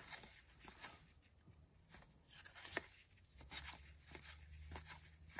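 Faint, irregular papery clicks and rustles of old 1981 Topps cardboard baseball cards being thumbed off a stack one at a time in the hands.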